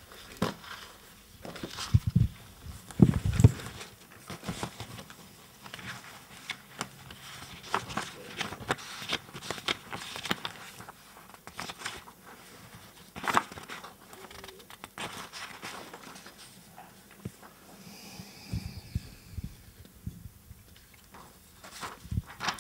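Sheets of paper rustling and crinkling as a stack of printouts is leafed through, in irregular bursts throughout. A few dull knocks of a handheld microphone being handled stand out as the loudest sounds, about two and three seconds in.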